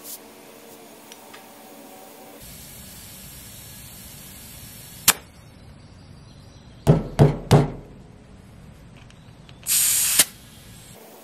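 Compressed air from an air chuck on a tractor front tire's valve stem: a steady hiss of air going in that ends in a sharp click, then three short loud blasts in quick succession, then a half-second loud hiss of air near the end.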